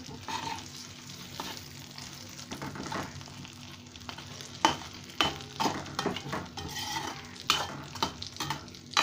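Stuffed brinjals sizzling as they fry in bubbling oil in a pan, with a metal spatula stirring them. The spatula scrapes and knocks against the pan several times in the second half.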